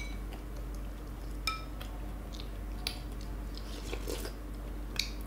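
Metal spoons clinking against glass bowls of rice porridge: two short ringing clinks, at the start and about a second and a half in, with small clicks and soft chewing between.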